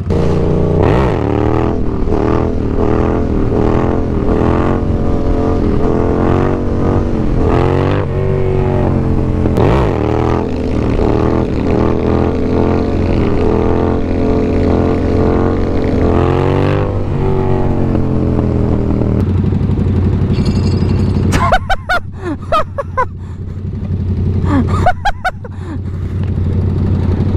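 Motorcycle engine pulling away and riding, its pitch rising and falling over and over with the throttle and gear changes, then settling to a steadier, lower running sound for the last several seconds.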